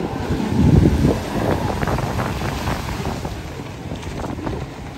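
Wind buffeting the microphone, a low rumble loudest about a second in, over the distant drone of racing jet skis out on the water.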